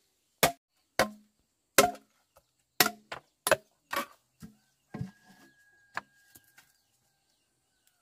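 Sharp chopping blows from a hand tool, about ten at an uneven pace over six seconds, then stopping.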